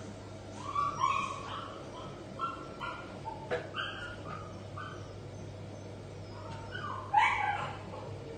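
Puppy giving a string of short whiny yips and whimpers, the loudest burst near the end.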